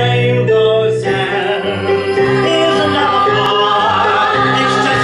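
A small group of male and female voices singing a show tune together over instrumental accompaniment, in long held notes.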